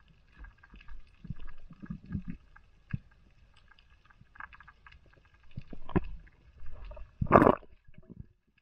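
Muffled underwater sound picked up through a camera housing while swimming over a coral reef: irregular low thuds and water movement with faint crackling ticks, and a louder rushing burst about seven seconds in.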